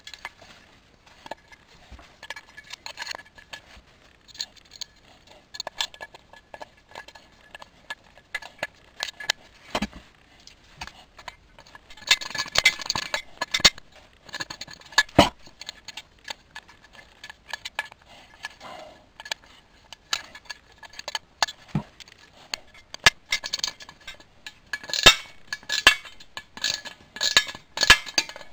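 Hands handling lamp parts on a wooden workbench: scattered clinks, knocks and rattles of metal and wood being picked up and set down, busiest about halfway through and again near the end.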